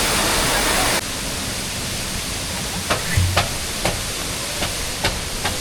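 Waterfall's steady roar, cutting abruptly about a second in to a quieter, steady rushing hiss with a few light clicks.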